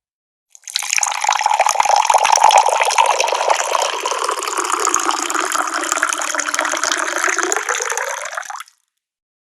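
Water pouring in a steady stream for about eight seconds, starting about half a second in and cutting off suddenly near the end.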